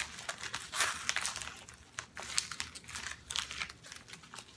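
A tightly sealed mailing envelope being worked open by hand: paper crinkling and rustling, with quick irregular tearing crackles.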